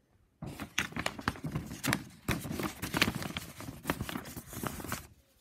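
Large paper pattern sheet being handled and folded: dense rustling and crinkling of paper that starts about half a second in and stops just before the end.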